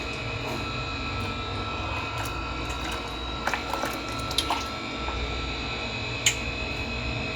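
Steady low hum with faint water sounds and a few brief drips or splashes.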